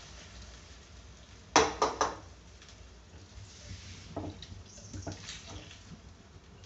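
Kitchen utensils knocking against a cooking pot: three sharp clacks in quick succession about one and a half seconds in, then a few lighter taps as the stew is stirred.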